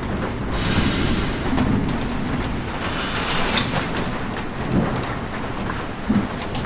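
Rain falling steadily, with a couple of brief louder swells of noise, about a second in and around the middle.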